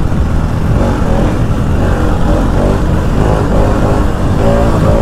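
Motorcycle running on the road, with a loud, steady low rumble of wind on the microphone.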